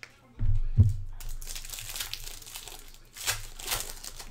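Foil trading-card pack wrappers crinkling and tearing as the packs are handled and ripped open, with a rustle that swells in sharp bursts about three seconds in. Two dull thumps on the table about half a second in are the loudest sounds.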